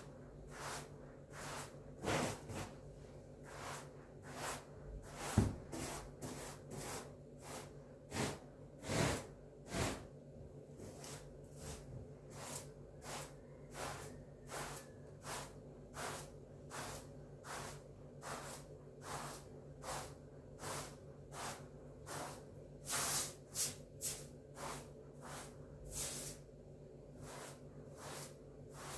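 Short straw hand broom swept across a thick pile rug in steady, regular strokes, about one and a half swishes a second, with a few louder strokes near the end. A steady low hum runs underneath.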